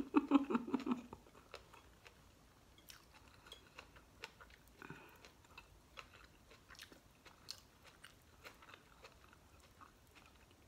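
A person eating fried fish and rice close to the microphone: faint, scattered mouth clicks and small crunches of chewing, after a brief bit of voice in the first second.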